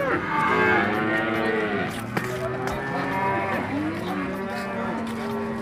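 Several cattle mooing, long arching calls at different pitches overlapping one after another.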